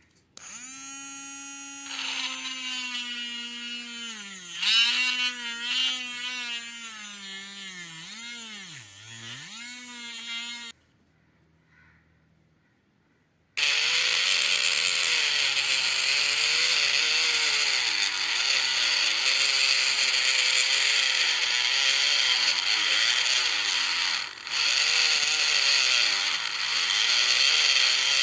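Small homemade DC-motor mini drill running with a steady whine, its pitch sagging several times as it is loaded. It stops, then after about three seconds runs again louder, with a harsh, noisy cutting sound and a wavering pitch as it works the material.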